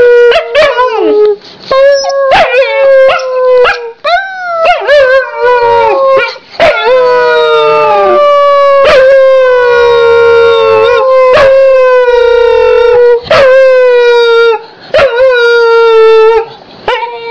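Dog howling in long, drawn-out howls, each held for several seconds and sliding slowly down in pitch, with short breaks and quick rising yelps between them.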